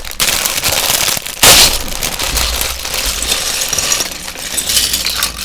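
Loose plastic Lego pieces clattering and rattling as they are handled or poured, a dense run of small clicks with a loud burst about a second and a half in.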